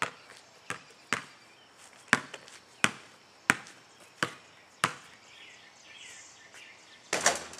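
A basketball dribbled on an asphalt driveway: about eight sharp bounces, roughly one and a half a second, then a pause while the shot is taken. Near the end a louder rattling clatter as the shot reaches the hoop.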